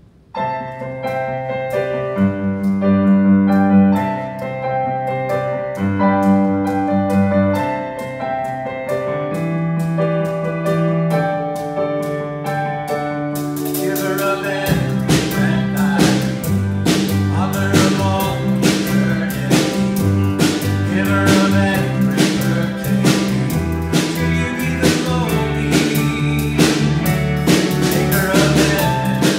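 Live church worship band playing a contemporary worship song with piano, acoustic guitars, keyboard, drum kit and singing. It opens softly with held chords over a steady light tick, and the drums and full band come in about fourteen seconds in.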